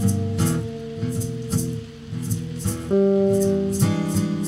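Blues guitar music: a rhythm guitar with a lead guitar holding long notes, over a steady light tick keeping time.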